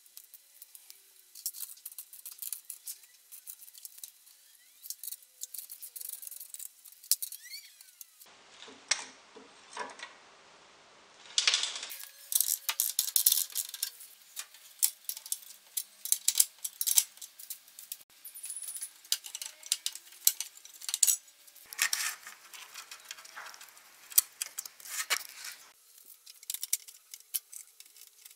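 Irregular metallic clicks, scrapes and rattles of hand work on the radiator and its hose: tools and fittings being handled as the lower radiator hose is taken off and the radiator eased out.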